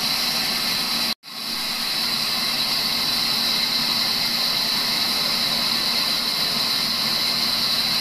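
Large sawmill band saw running steadily while a log is fed along its table into the blade: a constant loud machine noise with a high hiss. The sound cuts out for an instant about a second in, then resumes unchanged.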